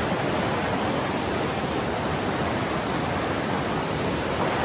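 A shallow, rocky mountain river rushing over stones: a steady, loud rush of water.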